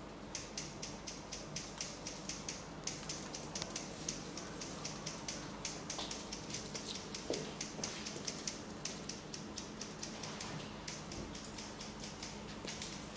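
Fingertips rubbing and kneading through short hair on a scalp during a head massage, making quick crackly, scratchy rustles a few times a second, starting about half a second in.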